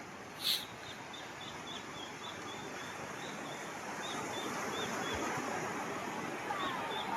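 Steady rush of sea surf with a bird calling over it: one loud sharp call about half a second in, then a run of short high chirps, about three or four a second, which return briefly near the end.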